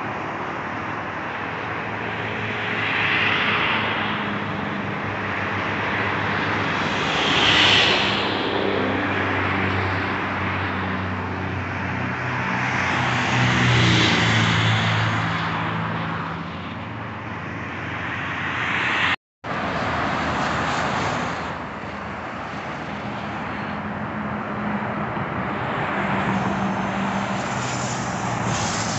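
Highway traffic going by: the tyre noise of cars and trucks swelling and fading as each passes, with the low hum of heavy diesel engines among it. The sound cuts out completely for a split second about two-thirds of the way through.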